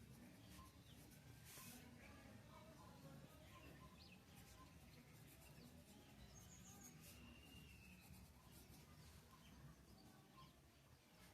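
Near silence: faint background hiss with a few faint, short bird chirps.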